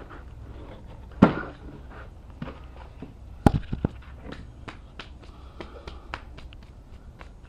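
Irregular clicks and knocks of hand tools and metal parts being handled while a lawnmower's blade and fan are swapped, with a sharp knock about a second in and a louder pair of knocks halfway through.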